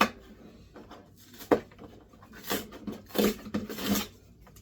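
Knife opening a cardboard shipping box: two sharp clicks, then several rasping strokes about two and a half to four seconds in as the blade cuts through the packing tape and cardboard.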